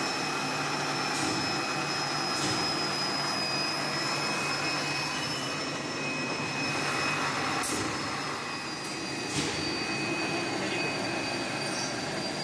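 Automatic seedling-tray drum seeder running, its vacuum blower giving a steady hiss with a high whine. A few faint clicks from the mechanism.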